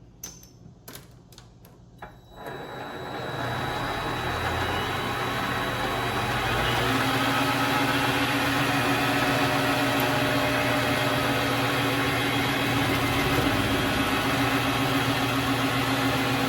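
Vevor MX400 mini lathe: a few clicks, then its motor starts about two seconds in, spins up over several seconds and runs steadily, with a hum and a steady tone added partway through.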